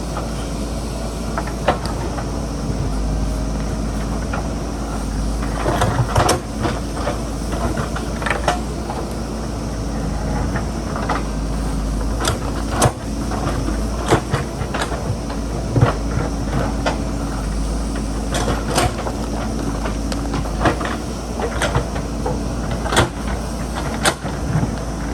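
JCB backhoe loader's diesel engine running steadily while digging into a hillside, with irregular sharp knocks and clatter from rock and soil.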